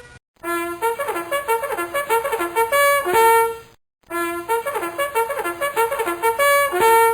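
Bugle sounding a fast call of quick, hopping notes that ends on a held note, played twice in the same way with a short break between.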